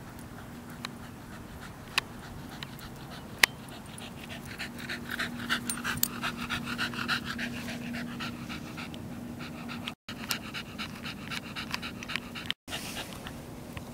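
Scottish terrier panting rapidly close up, a quick run of short breaths that starts a few seconds in and keeps going, with a few sharp clicks before it.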